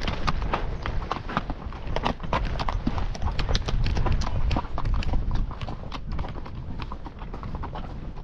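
Horses' hooves clip-clopping on a trail at a walk: many quick, irregular strikes from several horses, over a steady low rumble.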